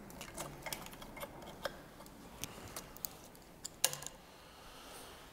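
Irregular small clicks and taps of plastic clips, connectors and hoses being worked loose by hand on an engine being stripped, with one sharper click about four seconds in.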